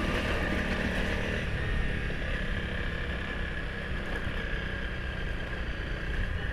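Motorcycle engine running steadily at low speed, with a thin steady high tone over it.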